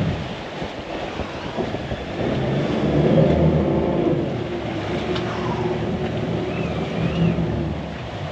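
Boat's outboard engines running under throttle while the boat is manoeuvred to follow a hooked fish. The engine note rises about two seconds in, then eases back to a steady run, over wind and water hiss.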